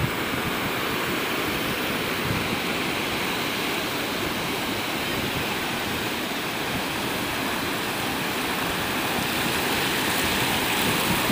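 Ocean surf: waves breaking and foamy wash running up the sand, a steady rushing noise that swells a little louder near the end.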